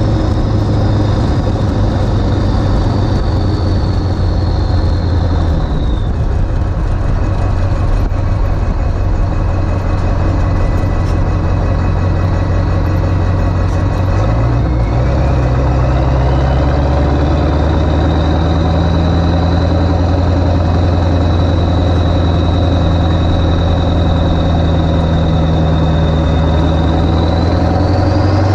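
Ford 7.3 Powerstroke V8 turbodiesel, running on 160/30 injectors, driving along; engine speed drops about six seconds in, picks up again around halfway and climbs near the end. A high turbo whistle falls and rises with it.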